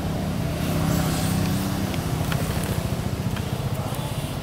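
A motor vehicle passing: a steady low engine rumble that swells about a second in and then eases off.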